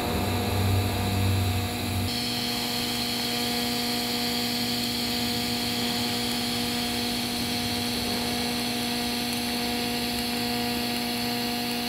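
TIG welding arc running on an exhaust flange joint as 1/16-inch filler rod is dipped into the puddle: a steady hum with a hiss. About two seconds in the low rumble drops away and a higher hiss takes over.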